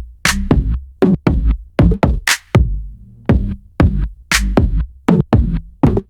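Electronic background music with a drum-machine beat: sharp drum hits about three times a second over a deep bass line.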